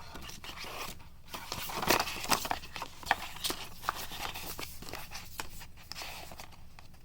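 Paper pages of a small printed booklet being handled and turned, rustling and crinkling with scattered sharp clicks and swishes, busiest around two seconds in.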